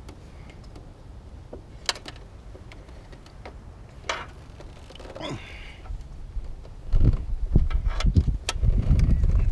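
Scattered clicks and light knocks of hand tools and stiff wire being worked into terminals, with a scrape about five seconds in. Over the last few seconds a loud low rumble comes in under more clicks.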